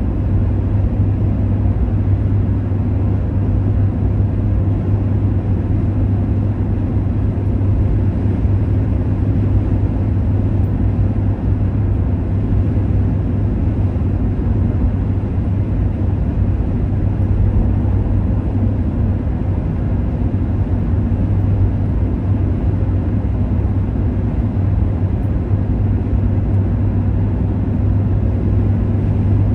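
Steady road noise of a car travelling at motorway speed, heard from inside the cabin: tyre and engine rumble with a constant low hum.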